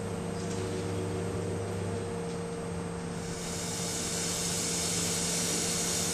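A steady low hum under faint hiss, and from about three seconds in a breathy hiss of air blown through a drinking straw.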